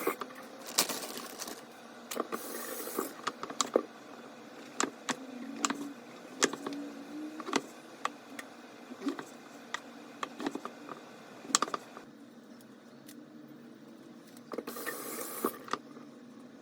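Scattered sharp clicks and knocks of things being handled, with a few short bursts of hiss near the start and near the end.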